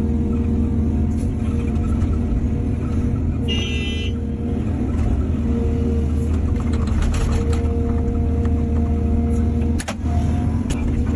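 Diesel engine of heavy earthmoving machinery running steadily, with a brief high-pitched squeal about three and a half seconds in and a sharp click near the end.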